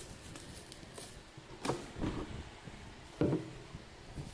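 A few dull knocks and bumps as a moulded plastic chair is handled, the loudest about three seconds in.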